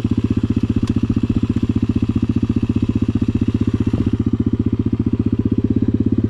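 KXD 125 pit bike's 125 cc four-stroke single-cylinder engine running at low, steady revs while the bike rolls along slowly, with an even, rapid pulse of firing strokes.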